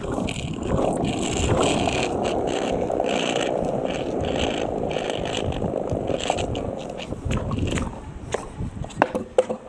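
Skateboard wheels rolling and scraping over street pavement, a steady rough rumble that starts suddenly and eases off about eight seconds in, followed by a few sharp clacks near the end.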